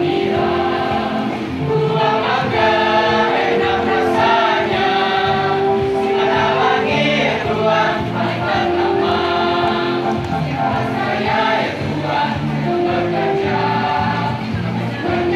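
Mixed school choir of boys and girls singing an Indonesian regional song together, with notes held long and moving without a break.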